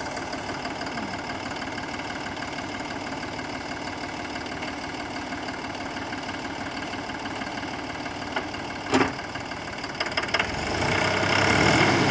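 Force Motors Sanman 5000 tractor's Mercedes-Benz-derived diesel engine, freshly started and idling steadily, with a single knock about nine seconds in. Near the end the engine speeds up and gets louder.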